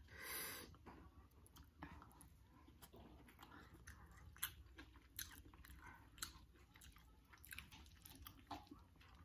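Faint close-up chewing of noodles, with many small scattered clicks and wet mouth sounds.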